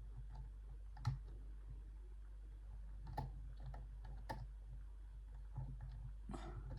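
Disc detainer padlock being picked: a handful of sharp, isolated clicks a second or two apart as the pick turns the lock's rotating discs, over a faint low hum.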